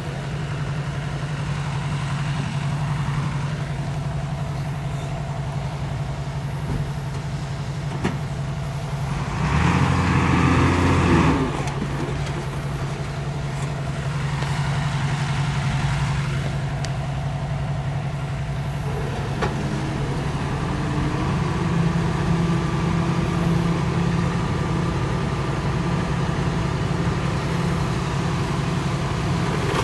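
Heavy diesel engine of earthmoving machinery running steadily, with one louder surge lasting about two seconds about ten seconds in.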